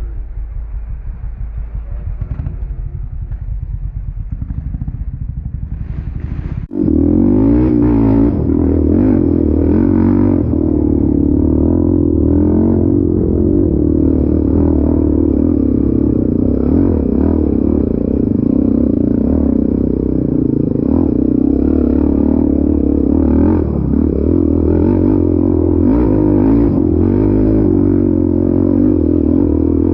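ATV engine running steadily; about seven seconds in the sound breaks off and comes back louder and fuller, the engine now close by.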